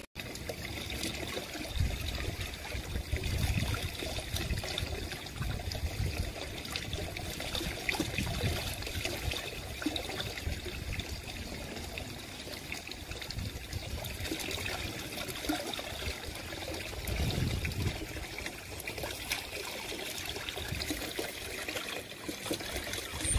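Water from a pool's waterfall spout pouring steadily into the pool, splashing on the surface.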